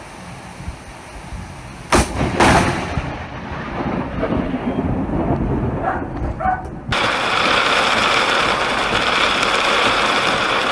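Close lightning strike: a sharp thunder crack about two seconds in, a second crack right after it, then a rumble that fades. About seven seconds in it cuts off abruptly and a loud, steady rushing noise takes over.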